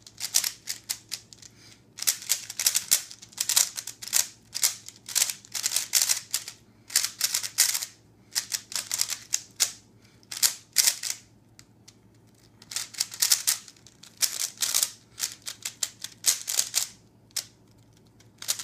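Plastic 3x3 speed cube being turned rapidly in a timed solve: quick runs of clicking layer turns, broken by short pauses between sequences.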